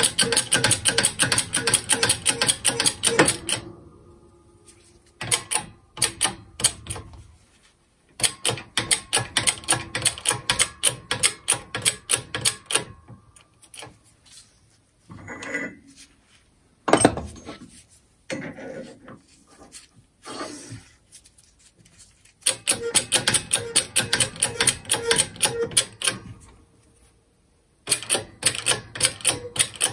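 Hydraulic shop press being pumped in quick strokes, a rapid even clicking at about three to four strokes a second. The clicking comes in bursts of a few seconds, with a few separate knocks around the middle, as the ram and drift press a bearing off a grinder part.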